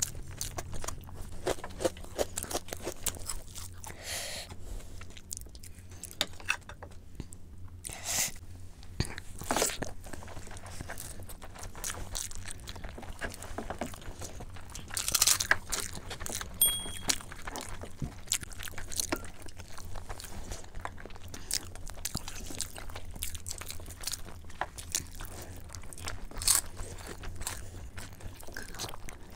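Close-miked eating: several people chewing, smacking and biting, with crisp crunches of raw onion being bitten. The sounds are irregular short snaps and wet clicks, sped up 1.5 times, over a low steady hum.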